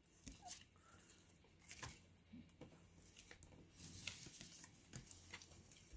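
Near silence with faint, scattered soft clicks and rustles of trading cards being handled.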